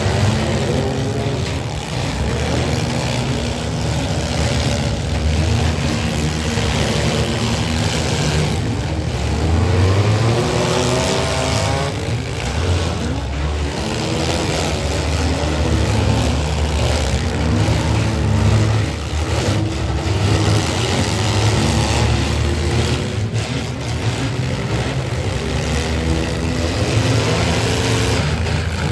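Several compact demolition-derby cars' engines revving and running hard together, pitch rising and falling as the cars rev. Occasional bangs of cars hitting one another come through the engine noise.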